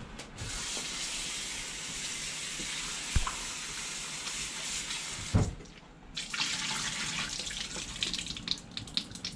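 Kitchen tap running into a stainless steel bowl of fish pieces in the sink, rinsing them. The water stops for about a second just past halfway and then runs again, with a couple of low knocks of the bowl and short splashes as the pieces are moved about near the end.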